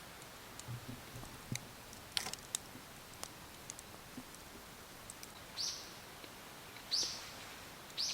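A bird calling three times, short high calls that drop in pitch, about a second apart in the second half, after a few scattered light clicks and crackles.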